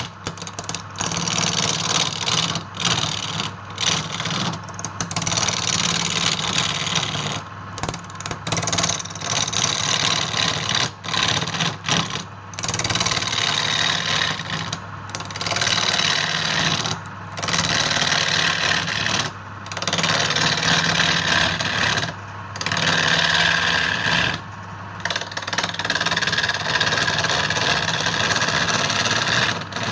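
Wood lathe motor running with a steady hum while a turning tool cuts the spinning wood. The cutting noise comes in passes of a couple of seconds, broken by short pauses.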